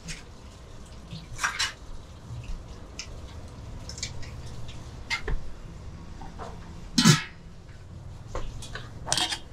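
Kitchen clatter at a phở stall: scattered clinks and knocks of utensils against bowls and pots, with one loud knock about seven seconds in.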